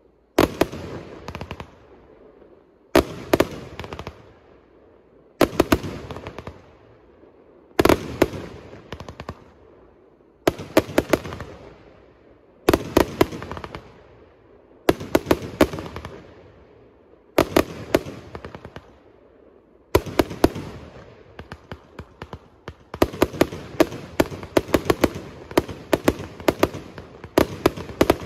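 A 100-shot, 26 mm firework cake firing its shells. Groups of sharp reports come about every two and a half seconds, each group trailing off before the next. For the last few seconds the shots come in a rapid, unbroken string.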